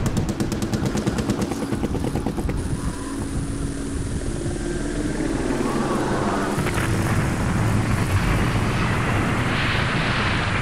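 Battle sound effects: a rapid machine-gun burst for the first two seconds or so, then a steady low engine-like rumble that swells near the end.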